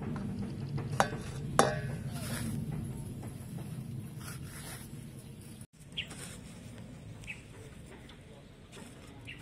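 Outdoor background with a low steady hum, a few short bird chirps and two sharp clicks in the first two seconds.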